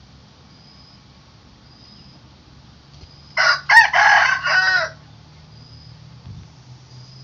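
Rooster crowing once: a loud crow of about a second and a half, starting about three and a half seconds in, over faint regular chirps.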